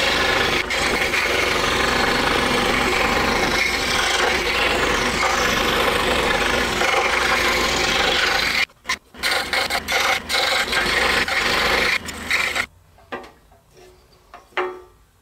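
Excalibur scroll saw with a No. 7 reverse-tooth blade cutting the outline of a poplar block, a loud steady cut. Around nine seconds in the sound breaks off and returns in a few short spurts, then stops about three seconds later. A few light knocks follow.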